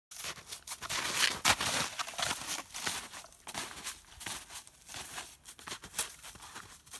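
Snowshoe footsteps crunching through snow: an uneven run of crunches, loudest in the first two seconds.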